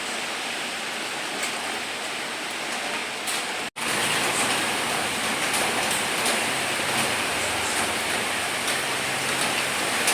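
Steady hissing noise with no distinct events, cutting out completely for an instant about four seconds in.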